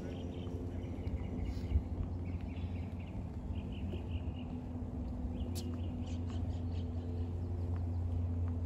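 Outdoor ambience: small birds chirping in short repeated calls over a steady low hum, with a single sharp knock about five and a half seconds in.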